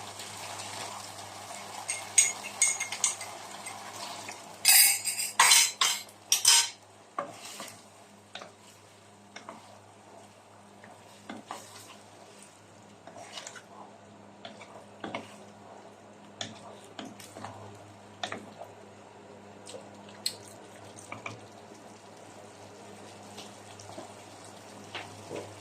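A cooking utensil clinking and scraping against a pan while stirring a thickened sweet and sour sauce. There is a run of loud clatters about five seconds in, then lighter, scattered knocks.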